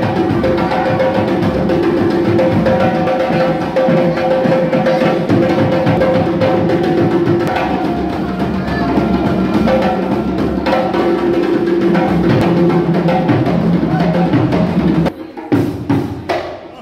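Live group hand drumming, dense and driving, with held notes beneath it. About 15 seconds in the drumming breaks off suddenly, and a few separate loud strikes follow.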